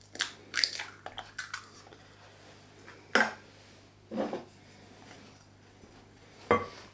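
Scattered small clicks and knocks of hands at work: an egg broken open over a glass mixing bowl of flour, its empty shell set down in a small glass egg cup, and a wooden spoon taken up in the bowl. The sharpest knocks come about three seconds in and just before the end.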